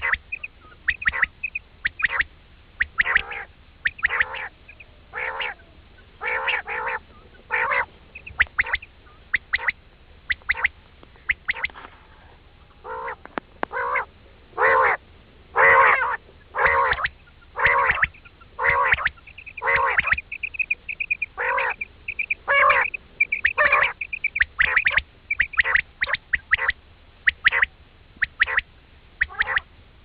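Common quail calling over and over: short, harsh calls about once a second, sometimes in quick pairs, with a thin, fast, high trill in the middle. These are calls of the kind played to lure quail to the hunters' nets.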